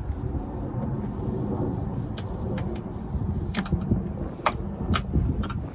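Sharp, irregular clicks of a metal clip-removal tool prying at a broken plastic fender-trim clip, about half a dozen of them from around two seconds in, over a steady low rumble.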